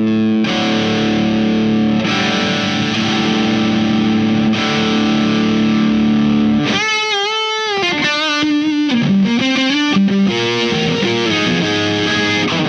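Larrivee RS-2 electric guitar with P90 pickups played through a Visual Sound Jekyll & Hyde V1 drive pedal with its sharp setting on. A distorted chord is held and rings for about six and a half seconds, then comes a bent note with wide vibrato and a short single-note lick.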